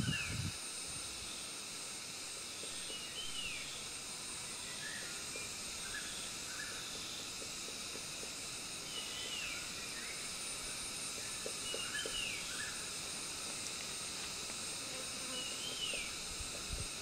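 Steady high-pitched insect chorus with a small bird giving short, down-slurred whistled notes every two to three seconds. There is a brief low thump right at the start.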